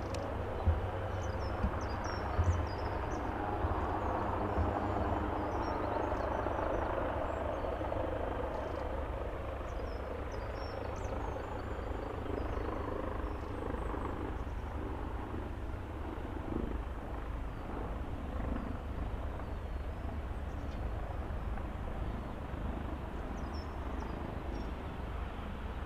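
Leonardo AW139 twin-turbine helicopter's rotor and engine noise, a steady low beat under a broader whine that swells a few seconds in and then eases off, during its landing. Birds chirp faintly over it.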